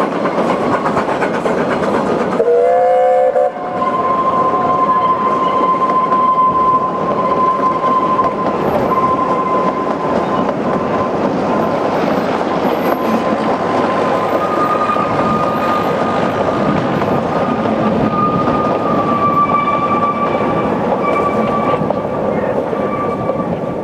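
Narrow-gauge steam locomotive sounding a short whistle about two and a half seconds in, then its train of carriages rolling past, wheels clattering on the rails, with a steady high squeal from wheel flanges on the curve.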